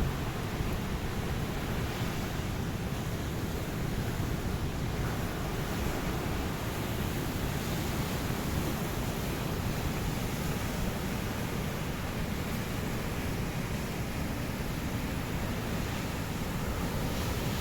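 Ocean surf: a steady, even rush of waves breaking on a beach.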